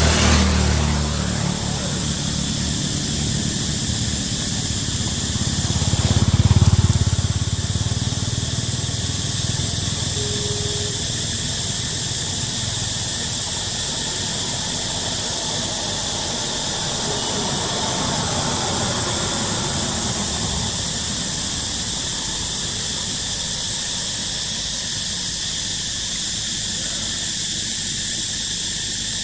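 Steady high-pitched drone of insects, with motorbike engines passing on a road: one at the very start and a louder one about six seconds in.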